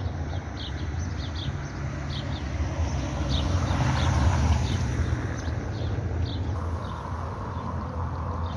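A car passes on the wet street about midway, its tyre noise swelling and fading, over a steady low rumble. Small birds chirp repeatedly, a few short high calls a second.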